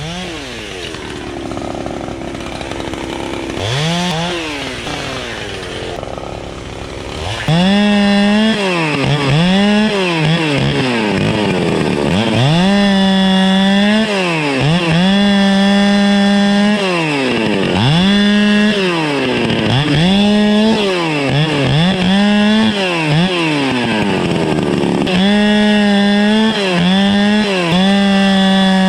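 Two-stroke chainsaw limbing and bucking a felled pine. It runs low with one brief rev for the first several seconds, then from about seven seconds in it is revved to full speed again and again, holding through each cut and dropping back between cuts.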